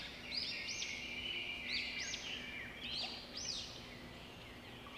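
Birds chirping: clusters of short, arched whistled notes about once a second, thinning out near the end.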